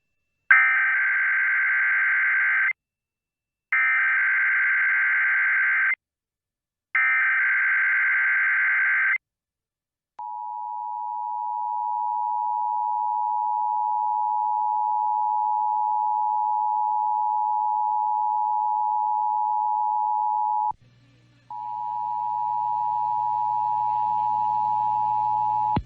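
Emergency Alert System test tones: three SAME header data bursts, each a harsh digital warble about two seconds long with short gaps between, followed by the EAS two-tone attention signal (853 and 960 Hz), a steady dual-tone buzz. About two-thirds of the way through, the attention tone drops out for a moment and comes back with a low hum under it.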